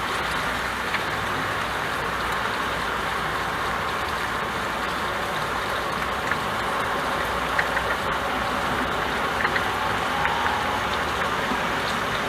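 Rain falling on a window pane: a steady hiss with scattered single drop ticks.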